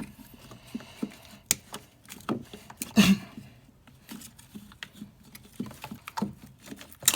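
Scattered plastic clicks and knocks of wiring-harness connectors being pulled up and released from an engine computer (PCM). The loudest knock is about three seconds in, with another near the end.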